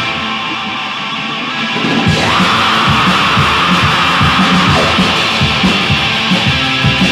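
Black metal recording: distorted guitars over drums. The drums and low end drop back for about the first two seconds, then the full band comes back in.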